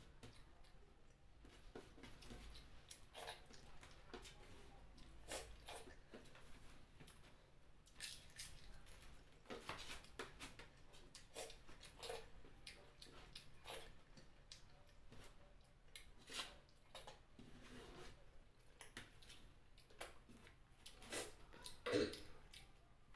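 Faint, irregular eating sounds: chewing and small wet clicks and crackles of someone eating chicken feet curry with rice, with one louder click about 22 seconds in.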